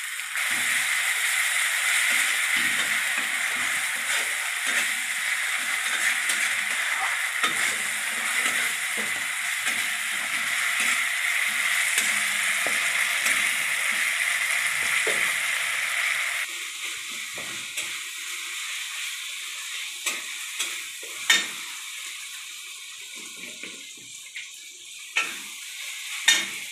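Onion and ginger-garlic paste sizzling in hot mustard oil in a steel kadai while a flat metal spatula stirs and scrapes it. The sizzle is loud and steady for about the first sixteen seconds, then drops suddenly to a quieter sizzle broken by occasional sharp clinks of the spatula on the pan.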